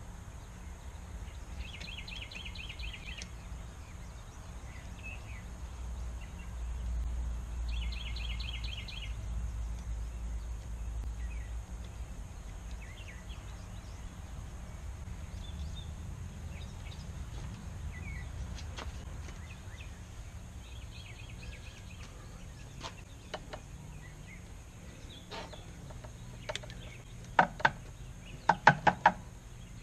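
Sharp clicks and taps of a screwdriver working at a metal fuel-line fitting on an outboard engine, a handful of them in the last few seconds and the loudest sounds, over a steady low background hum. A short, high, rapid chirring trill repeats a few times in the background.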